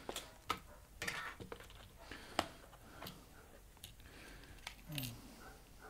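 Faint, scattered sharp clicks and a brief rustle from small phone parts and a clear plastic parts box being handled, with a short low falling sound near the end.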